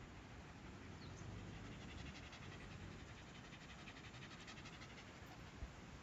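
A bird's faint, rapid trill of repeated high notes, starting about a second and a half in and lasting about three seconds, over quiet background hiss.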